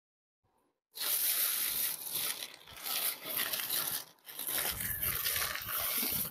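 Thin plastic shopping bag rustling and crinkling as a plastic-wrapped suit is pulled out of it, starting about a second in.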